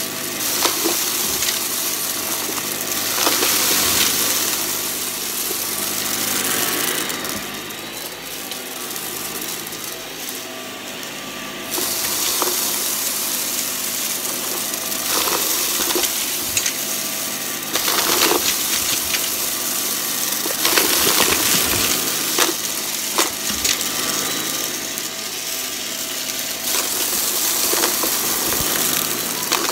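Shark DuoClean upright vacuum running on carpet, its motor steady while small hard debris crackles and rattles as the brushroll head sucks it up. The high hiss of the suction drops away for a few seconds near the middle, then comes back.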